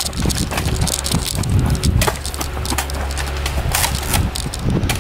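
Footsteps running on a dirt trail, heard from the runner carrying the camera, an uneven run of thuds with the camera jostling and wind rumbling on the microphone.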